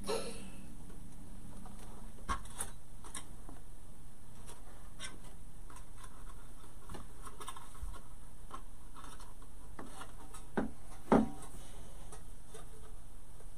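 Scattered light clicks, taps and rubbing of craft materials being handled on a tabletop, with two louder taps close together near the end.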